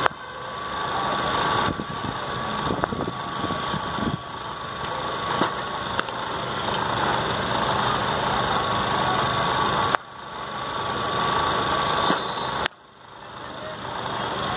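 Sharp knocks of a cricket bat striking the ball, one right at the start and another about ten seconds in, each followed by a brief dip in level, over a steady rumbling background noise.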